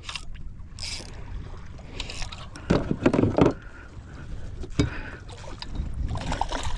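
Water sloshing against a fishing kayak's hull and wind buffeting the microphone while a hooked tailor is reeled in, with a louder burst about three seconds in. Near the end the tailor splashes at the surface beside the kayak.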